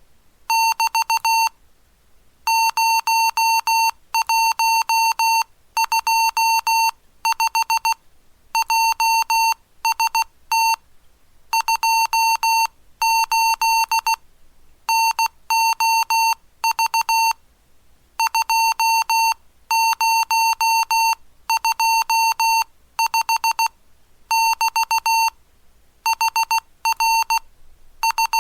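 Morse code (CW) sent as a buzzy tone near 900 Hz, keyed on and off in dots and dashes grouped into characters and words, spelling out the telegram-style message about the heavy rain.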